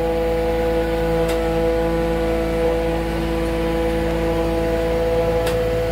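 Caterpillar D13000 diesel engine running at a steady speed, an even hum with several steady tones.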